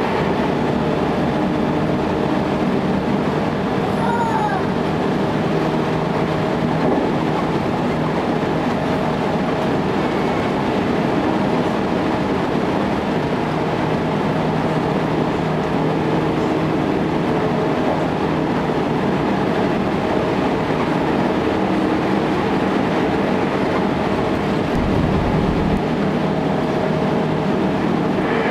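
JR local electric train running at speed, heard from inside the front of the car: a steady rolling and running noise with a constant hum.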